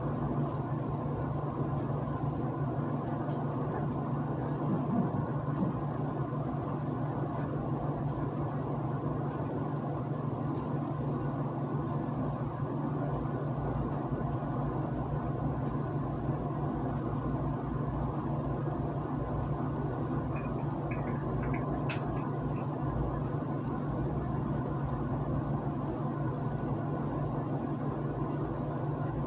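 A steady low hum with room noise, unchanging throughout, and a few faint clicks a little after twenty seconds.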